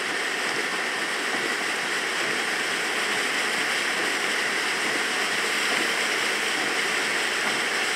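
Steady rushing hiss of a vehicle's tyres throwing up spray as it drives through standing water on a flooded road.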